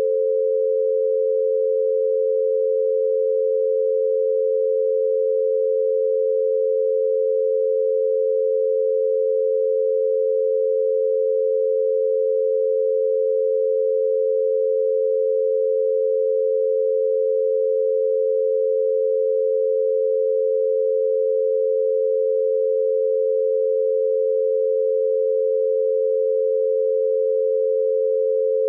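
Binaural beat: two steady pure tones, one a little below and one a little above 500 Hz, 88 Hz apart, meant to be heard one in each ear on headphones.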